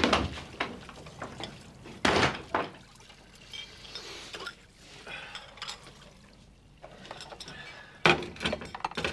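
Two loud bangs about two seconds apart, then lighter clinks, and near the end a burst of dishes and cutlery clattering as crockery is washed up in a kitchen sink.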